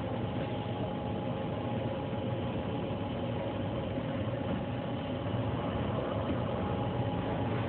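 Steady machine hum with a couple of faint steady tones underneath, from a powered-up Daewoo Puma 2000SY CNC turning center.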